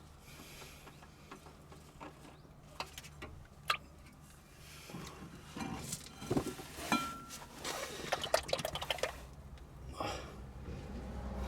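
Scattered light clicks and clinks of small hard objects being handled, bunched together in the second half, over a faint steady low hum.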